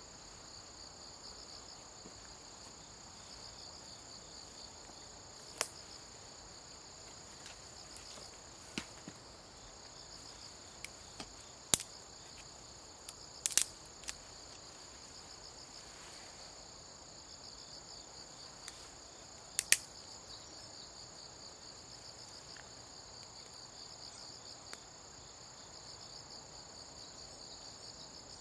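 Steady chorus of trilling insects, one high pulsing buzz over a second steady high tone. About a dozen sharp clicks or snaps stand out over it at uneven intervals, the loudest a close cluster around the middle and a double snap later on.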